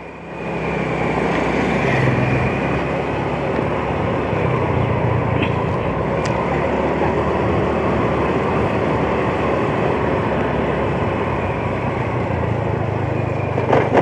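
Motor scooter engine running steadily while riding, with a steady rush of wind and road noise over it. It swells over the first half second, then holds steady.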